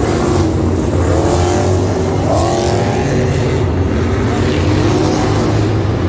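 Monster truck engines, supercharged big-block V8s, running loud across the arena, with the engine pitch climbing a couple of times near the middle as the trucks rev.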